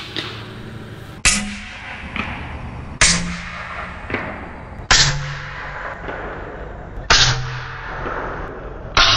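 Shot from a Bintac MCAR .457 big bore air rifle and its slug smashing a cinder block, heard as a sharp crack repeated five times about two seconds apart. Each crack is a little lower and duller than the last, like a replay slowed further each time.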